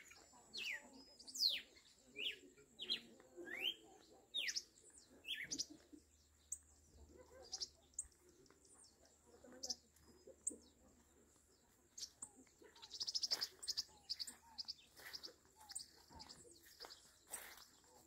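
Wild caatinga birds calling: a run of sharp, downward-sliding whistles in the first few seconds, then scattered chirps and a quick trill about thirteen seconds in.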